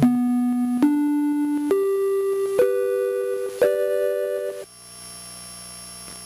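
Cheap polyphonic chime-like synth tones from a Parallax Propeller microcontroller, played from a MIDI keyboard: a slow run of held notes and two-note chords, changing about once a second, each starting with a sharp click. The notes stop abruptly near the end, leaving a quieter steady hum with a thin high tone.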